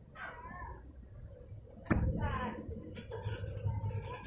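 Blue-crowned hanging parrot (serindit) calling: a soft call at the start, then a sharp high chip and a quick warbled note about two seconds in, then a fast run of short, shrill chattering notes.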